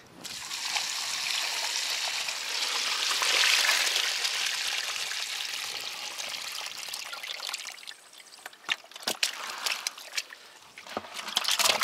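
Water pouring and trickling off as the catch of crucian carp is lifted out of the river, swelling about three seconds in and dying away by about eight seconds. A few sharp taps and clicks follow near the end.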